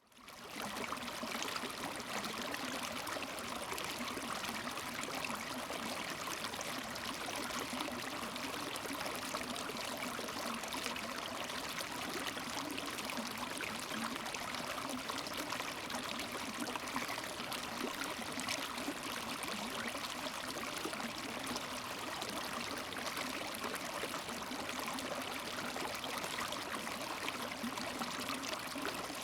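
River water flowing and splashing over stones: a steady, even rush that fades in over the first second.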